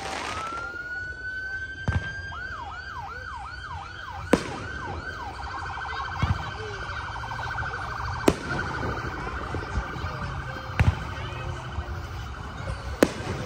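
Electronic emergency-vehicle siren: a rising wail, then a fast yelp swooping up and down about two or three times a second, switching about five seconds in to a rapid warble. Sharp firework bangs go off every few seconds behind it.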